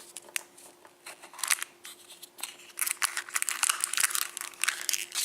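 Crinkling and tearing of thin wrapping as a Kinder Surprise egg's toy capsule is opened and its contents unwrapped. The rustles are scattered at first and come thicker from about halfway.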